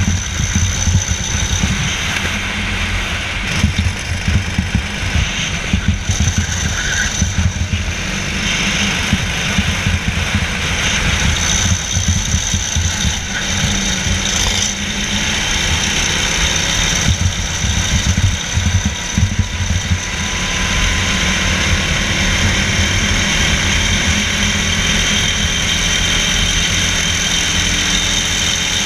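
Go-kart engine running flat out while lapping, heard from an onboard camera on the kart, over a constant rough low rumble.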